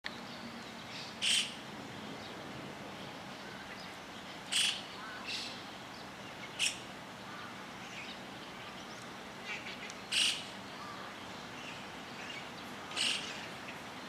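White-cheeked starlings calling: five short, harsh calls a few seconds apart, with fainter chirps in between.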